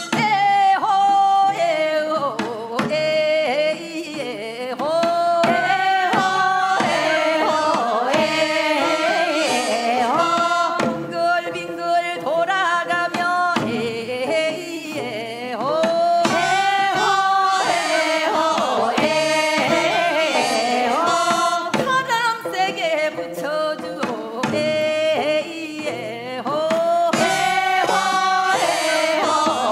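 Korean Gangwon-do folk work song sung by a group of voices over drum and traditional Korean instrumental accompaniment.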